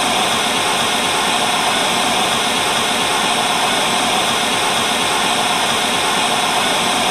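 Television static: a loud, steady hiss of white noise.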